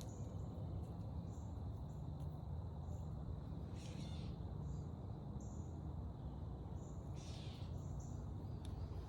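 Forest ambience: insects keep up a steady thin high whine and a high chirp that repeats about once a second. Two short harsh calls come about three and a half seconds apart, over a steady low rumble.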